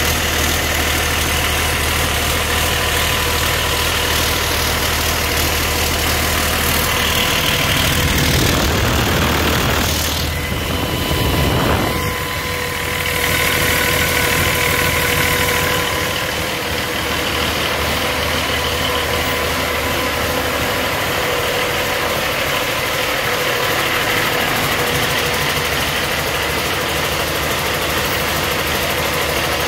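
Cummins ISX inline-six diesel truck engine idling steadily on a test stand, with diesel clatter; this is a test run of a used engine out of the truck. A little under halfway through, the tone changes and the deep low end drops away.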